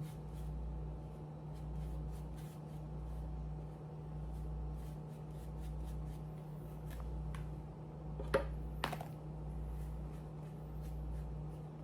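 Faint scraping, ticking and rustling from hands spreading glazing putty over a 3D-printed helmet, with two sharper clicks about eight seconds in, over a steady low hum.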